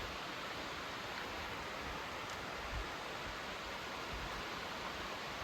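Steady rush of a small stream flowing over rocks.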